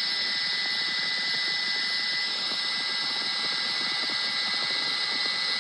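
Steady turbine whine and rushing rotor noise of a news helicopter, an even high hiss with a thin high whistle held throughout.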